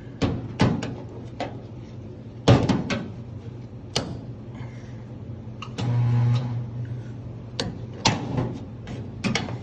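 Resistance spot welder buzzing once for about half a second, about six seconds in, as it fuses the pinch-weld flange of a new floor pan. Around it come sharp clicks and knocks of the welder's arms clamping and metal being handled, over a steady electrical hum.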